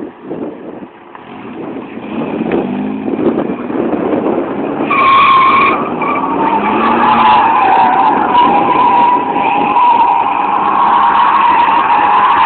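Mercedes-Benz sedan being drifted: the engine revs up and down, and from about five seconds in the tyres squeal in a long, wavering high tone that grows louder.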